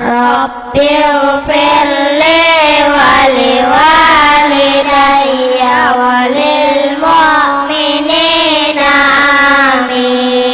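A group of children reciting the Quran together in slow, melodic tartil, amplified over a microphone and loudspeaker. Their voices glide through the melody in unison and hold a long vowel on one steady note near the end.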